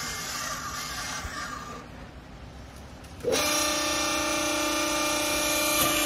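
Vertical hydraulic clothes baler's electric motor and hydraulic pump switching on about three seconds in and running with a steady hum. Before it, a short stretch of rustling handling noise.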